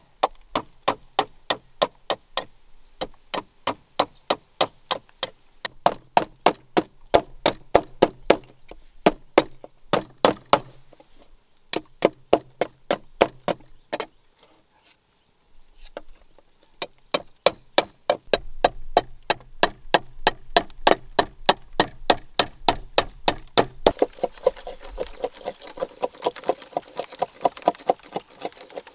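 Knife chopping food on a leaf laid over bamboo floor slats, quick repeated chops about three a second, with a pause of a second or two about halfway. Over the last few seconds a steady background hiss comes in under the chops.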